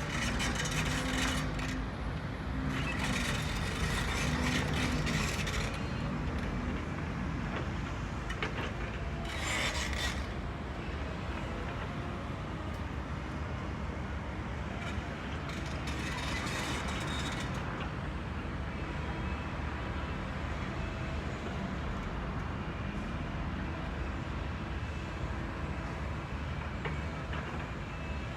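Radio-controlled model construction machines working: a steady low motor and pump hum, broken by several noisy bursts a second or more long, the loudest near the start.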